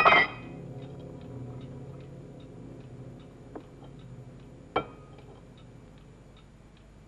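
A clock ticking steadily, about twice a second, with a faint sharp click about three and a half seconds in and a louder click a little before five seconds.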